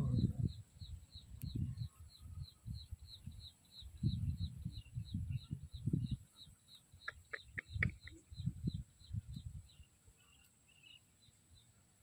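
Low rustling and handling noise in bursts from the dog being held on dry grass, with a steady high chirp repeating about three times a second underneath. A few sharp clicks come about two-thirds of the way in.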